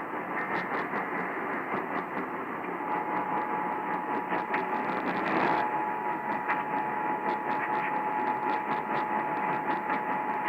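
AM radio static: a steady hiss full of crackling clicks. About three seconds in a steady whistle-like tone comes up under it, and a second close tone joins it about halfway through.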